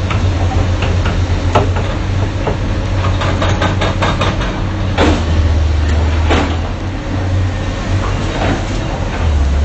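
Excavator's diesel engine running steadily, with repeated metal clanks and knocks over it, a quick run of them just before the middle.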